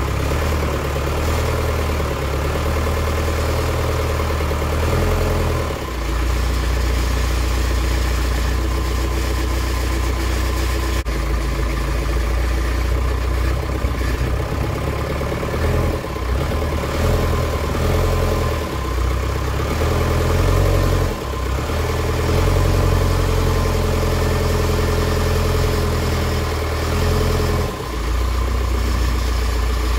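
Engine of a forklift-type loader running steadily at a low idle as it works the forks to draw a backhoe transmission out. Its note drops and shifts briefly a few times.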